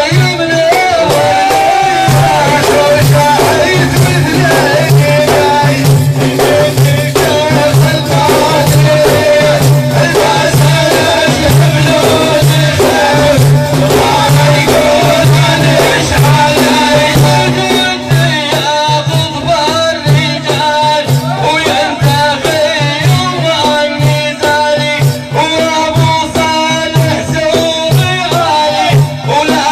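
Sufi dhikr music: a man's voice singing a wavering melodic line over a steady low pulse, with drum strokes and jingling rattles throughout.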